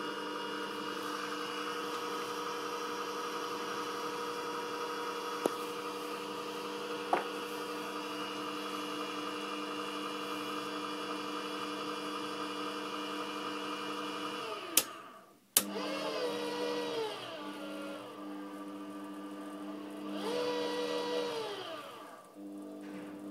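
Small metal lathe's motor drive running with a steady whine. About two thirds of the way in it winds down and cuts out with two sharp clicks. It then runs again with its pitch sliding, rising and falling once more before a brief drop-out near the end.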